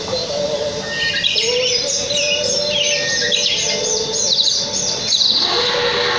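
Birds chirping in a rapid run of short, high, downward-sweeping notes, over a steady hum.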